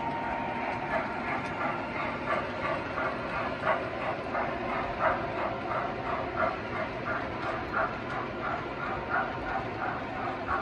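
A model steam locomotive's onboard sound system chuffing in an even rhythm, roughly two and a half chuffs a second, as the train runs on 3-rail O-scale track. The rhythm settles in about a second in.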